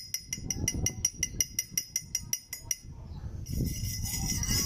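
Combination chipping hammer and wire brush knocking slag off fresh welds on a steel pipe: rapid, even taps, about seven a second, with the pipe ringing. About three and a half seconds in, the taps give way to a denser, rougher scraping.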